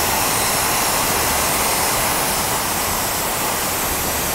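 Inverter air plasma cutter, fed compressed air from the air compressor, cutting through steel sheet: a loud, steady hiss of the arc's air jet.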